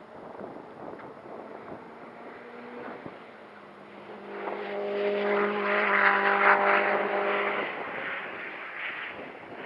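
A time-attack race car's engine heard going by: it swells in from about four seconds in, holds a steady pitch, is loudest a little past the middle, and fades away by about eight seconds. Wind on the microphone runs underneath.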